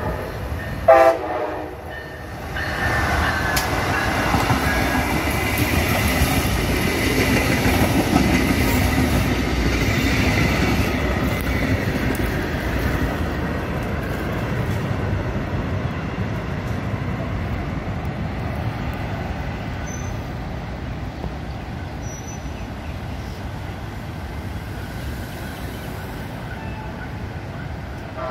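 Brightline passenger train with Siemens Charger SCB-40 diesel locomotives: a short horn blast about a second in, then the train passing close by. Its rumble and wheel noise build, are loudest about a third of the way through, and slowly fade as it goes by.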